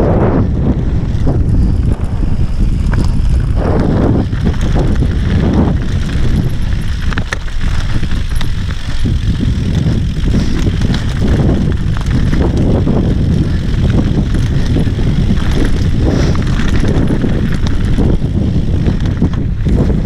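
Wind rushing and buffeting over a helmet-mounted camera's microphone as a mountain bike descends a dirt singletrack, with the tyres rolling over dirt and rocks and scattered short clicks and rattles from the bike.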